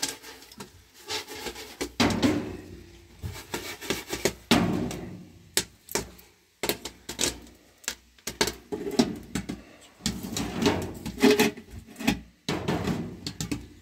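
Popcorn popping in a large aluminium pot on a stove: a scattered run of sharp pops, mixed with the pot and its metal lid scraping and clattering several times as they are handled.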